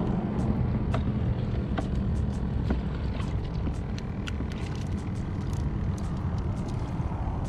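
Water bubbling and splashing in an aerated live-bait bucket as a hand rummages in it for live shrimp, with many small wet clicks. A steady low rumble runs underneath.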